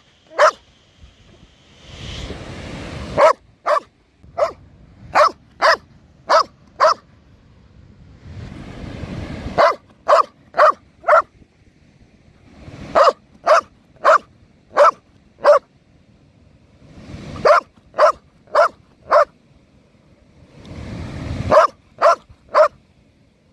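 Belgian Malinois barking in bouts of three to seven sharp barks, about two a second. Each bout is led by about a second of rough, rising noise.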